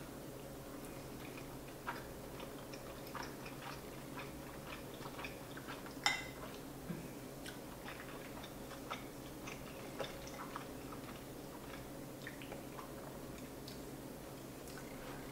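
Quiet eating sounds: soft chewing of farfalloni pasta in cheese sauce and a fork clicking against the plate, with a sharper clink about six seconds in. A faint steady hum lies underneath.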